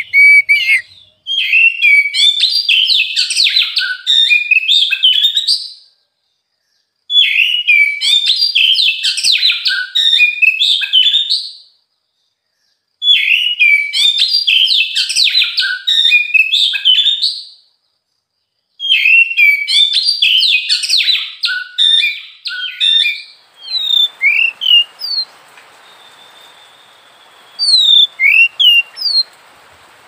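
Oriental magpie-robin singing: four loud bouts of fast, varied song, each about five seconds long with short pauses between. Near the end, over a steady hiss, a few separate short whistled notes follow.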